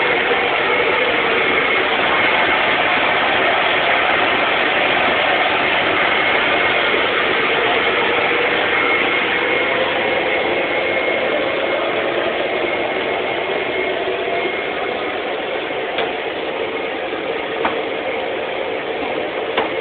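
Electric blower of an inflatable ball-toss game running steadily, a loud rush of air with a faint high whine as it inflates the structure and keeps the target balls hovering on their air jets. It gets a little quieter in the second half.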